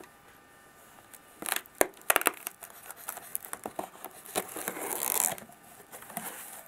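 A small folding knife slicing the clear packing tape on a corrugated cardboard box: sharp clicks and scratches, then a longer rasping rip about halfway through as the tape splits, and a few more scrapes near the end.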